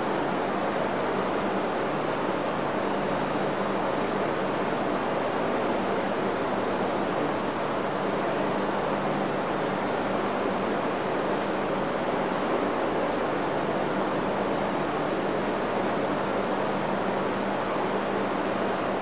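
Steady hiss of background noise with a low hum, unchanging throughout: the noisy sound of a poor-quality recording, with no other events.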